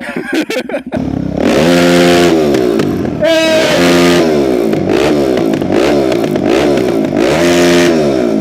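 Motorcycle engine revving up and down repeatedly, its pitch rising and falling about once a second, starting about a second in.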